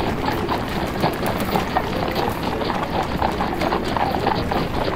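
Hooves of many horses clip-clopping at a walk: a steady stream of overlapping, irregular hoofbeats.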